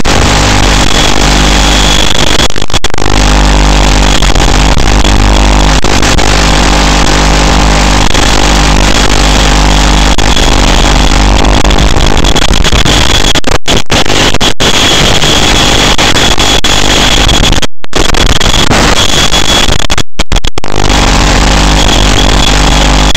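FPV racing quadcopter in flight: loud, distorted motor noise carried over the analog video link's audio, with several brief dropouts in the second half.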